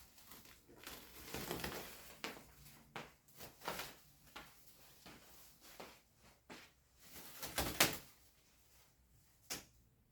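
Wrapping paper being pulled off new seats and handled: irregular rustling and crackling with a few sharp knocks, the loudest a little before eight seconds in.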